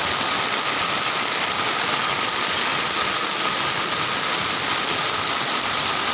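Heavy rain pouring down onto a flooded street, with runoff water rushing across the road; a steady, even hiss of rain and water.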